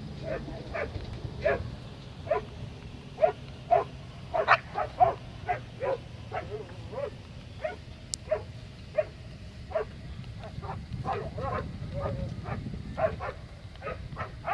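Young Belgian Malinois barking and yipping in a rapid, uneven series of short calls, about two a second, while heeling.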